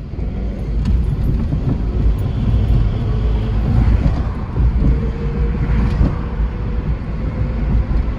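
Scion tC's 2.4-litre four-cylinder engine and road noise heard inside the cabin as the car pulls away from a stop, a loud, uneven low rumble. A faint steady whine comes in about five seconds in.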